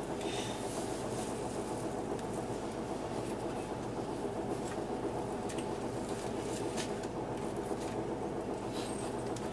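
Hino Blue Ribbon II city bus's diesel engine idling steadily while the bus stands still, heard inside the passenger cabin, with a few faint light clicks.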